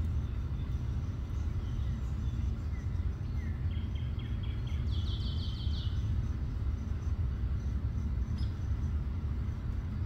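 A steady low rumble, with a small bird singing in the background a few seconds in: two quick runs of rapidly repeated notes, the second run higher, after a few single chirps.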